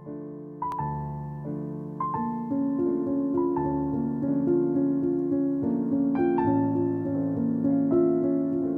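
Background piano music: a few soft notes at first, then from about two seconds in a fuller passage of steadily repeated notes and chords.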